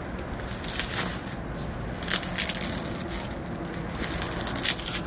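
Packing material rustling and crinkling in short bursts as a securely wrapped print is unpacked by hand, loudest about two seconds in and near the end.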